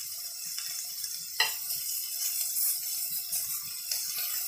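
Chicken pieces sizzling steadily in oil in a wok, with a sharp clink of a metal spoon against the wok about a second and a half in and a lighter one near the end.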